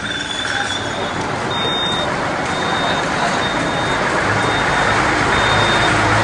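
Bus engine and road noise growing louder as a bus pulls past. A short high beep repeats about once a second throughout, like a reversing alarm.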